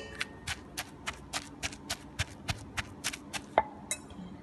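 Pestle pounding a green herb paste in a mortar: a steady rhythm of short, sharp strikes, about four a second, with one louder knock about three and a half seconds in.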